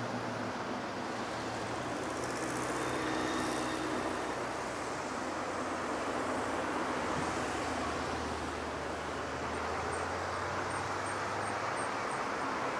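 Airbus A330's twin jet engines at takeoff power through the takeoff roll and liftoff: a steady rushing noise with a low hum underneath.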